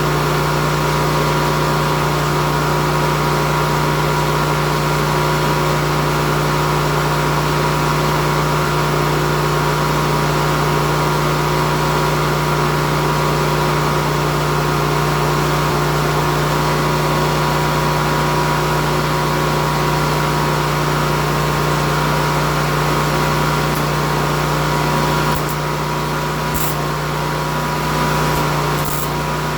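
A motor running steadily with a constant hum, dropping a little in level near the end, with a few faint clicks.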